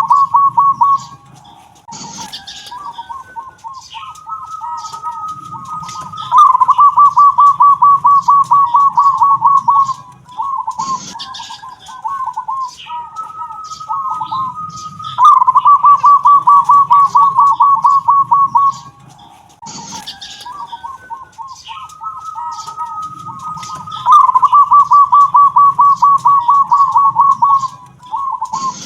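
Zebra dove (perkutut) singing its cooing song phrase three times, about nine seconds apart: a softer stuttering run of notes, then a louder rapid rolling trill of about three seconds. It is a 'kung'-type voice, sought after as a master voice for training young doves.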